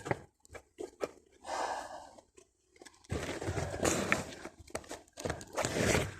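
Clothing and body scraping and scuffing against brick and rubble as a man struggles to squeeze out of a narrow hole, in three bouts of rustling and crunching with a few small knocks between them.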